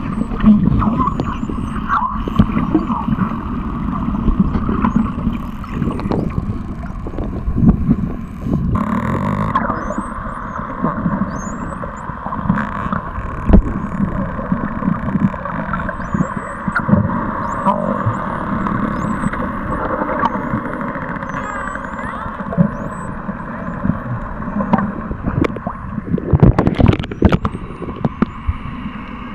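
Muffled underwater noise picked up by a camera under the sea: a steady low hum, with many clicks and knocks and faint short high chirps. A flurry of louder knocks comes near the end.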